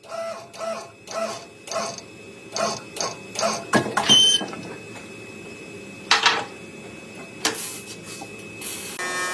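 Irregular knocks and clanks of work on car body metal, some with a brief ring, over a steady low hum. Near the end a buzzing power tool starts up.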